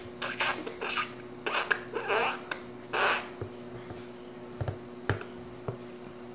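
A baby's short breathy sounds at a plastic sippy cup, several in the first three seconds, then a few soft clicks, over a steady low hum.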